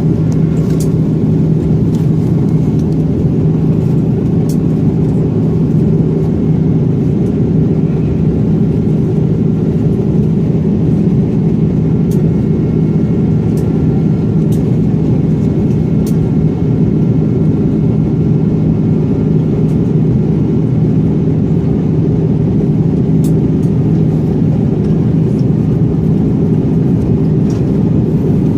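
Steady drone inside the cabin of an Airbus A330-300 in flight: engine and airflow noise with a low, even hum, and a few faint clicks.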